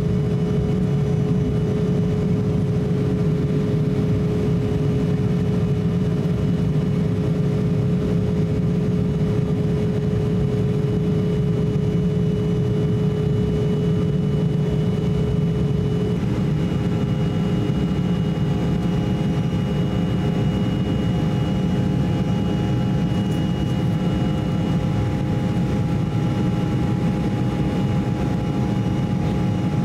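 Cabin noise of an Embraer E170 climbing after takeoff: a steady low rush of air and the drone of its two GE CF34 turbofans. The steady engine tones change pitch about halfway through.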